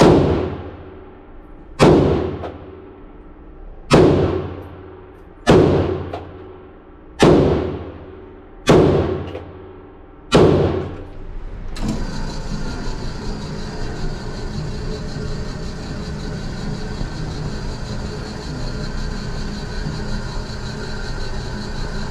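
Seven rifle shots in an indoor range, one every one and a half to two seconds, each echoing off the concrete lane. After about twelve seconds a steady hum and hiss takes over.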